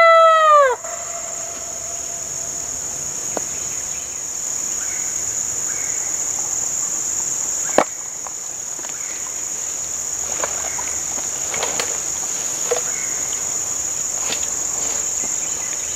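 The tail of a howl blown on a hand-held coyote howler call, dropping in pitch and cutting off under a second in. After it a steady, high-pitched drone of insects, with one sharp click about eight seconds in.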